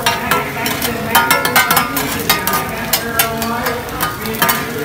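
Two metal spatulas scraping and clacking on a large flat iron griddle as egg is fried and chopped: a quick run of sharp metallic clinks and scrapes.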